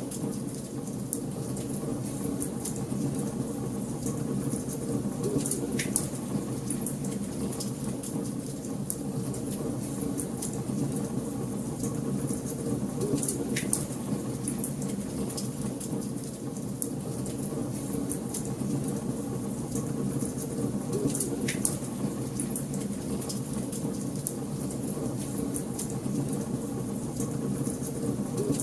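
Wood fire burning in a fireplace: a steady low rumble of flames with constant small crackles and, every several seconds, a sharper pop.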